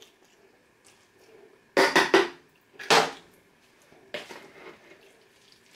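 Kitchen utensils knocking and scraping against a plastic mixing bowl as thick chicken salad is stirred: a few short clatters about two and three seconds in, and a softer one just after four.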